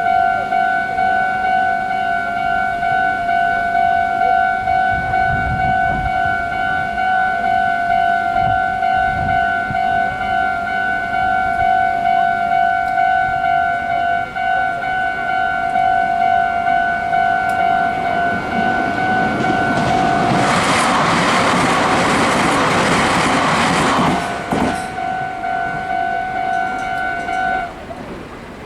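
Japanese level crossing warning bell ringing steadily with a fast repeating ding. About twenty seconds in, a Meitetsu 4000 series electric train passes for about four seconds with loud wheel-and-rail noise. The bell stops about a second before the end.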